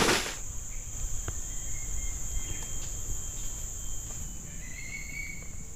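Steady high-pitched insect drone of crickets in the forest, with a step or rustle at the very start and a few faint short chirps about two seconds and five seconds in.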